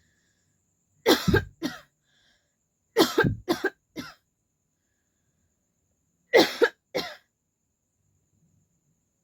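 A woman coughing on purpose in three short bouts: two coughs about a second in, four in quick succession around three seconds in, and two more near the end.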